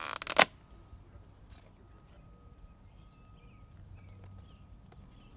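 A brief, loud rustle of leaves and branches as a cardboard pheromone trap is handled in an apple tree, then quiet with faint bird chirps.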